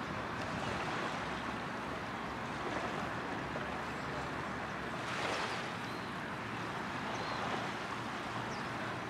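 Steady wash of surf and wind on a beach, swelling briefly a little past the middle, with a couple of faint, short high chirps in the background.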